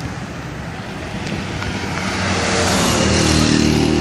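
Road traffic, with a vehicle's engine approaching and growing louder over the last two seconds.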